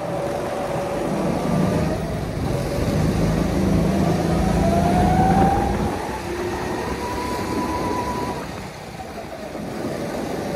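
Go-kart motor running at speed, pulling harder with a rising whine about four seconds in, then easing off around six seconds and picking up again near the end.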